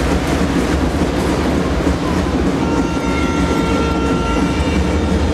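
Loud, steady crowd noise of a packed basketball arena during play, with a deep rumble underneath and a few faint held tones entering about three seconds in.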